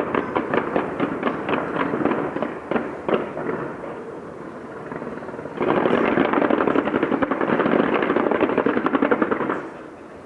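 Fireworks going off in rapid-fire succession: a dense crackle of many quick bangs that thins out after about three seconds, then a second dense volley starts a little past halfway and stops shortly before the end.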